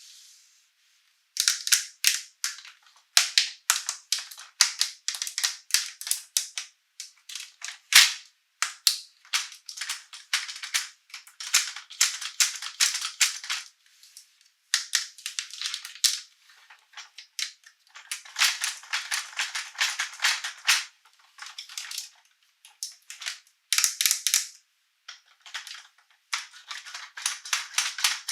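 Crisp crackling and crinkling of plastic toy packaging being handled and unwrapped, in rapid bursts with short pauses, starting about a second and a half in.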